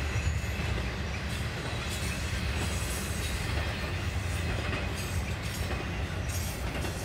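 Norfolk Southern intermodal freight train's double-stacked container cars rolling past, a steady low rumble of steel wheels on rail.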